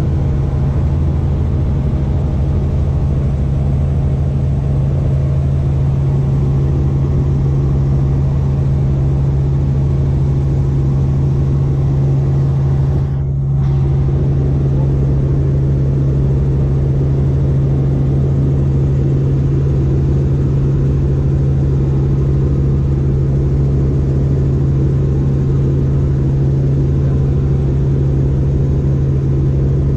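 Helicopter engine and rotor running steadily in flight, heard inside the cabin as a loud, even drone with a strong low hum. It drops out for a moment about 13 seconds in.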